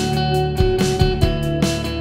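Background pop music: guitar over a steady drum beat, with no vocals.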